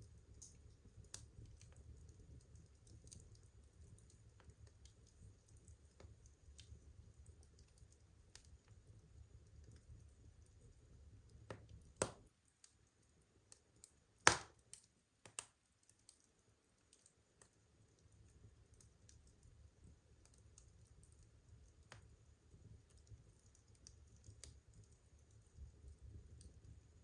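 Wood fire burning: faint, sparse crackles over a low steady rumble of flame, with a few louder pops of the burning wood near the middle, the loudest about halfway through. The rumble drops away for a few seconds after those pops.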